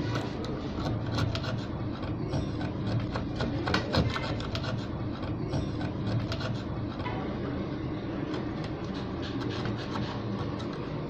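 A small flat metal scraper scraping rust off the steel blade of an antique pruning shear in quick, repeated short strokes, with a continuous gritty scratching as rust flakes break away.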